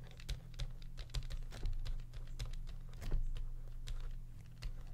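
Stylus tapping and scratching on a drawing tablet while a line of text is handwritten: irregular light clicks over a steady low hum.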